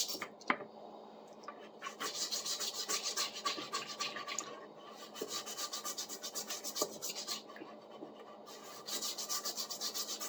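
Stiff-bristled brush scrubbing the rusty steel blade of a pruning saw in quick back-and-forth strokes, about four a second, in three spells with short pauses between, loosening rust softened by a vinegar soak.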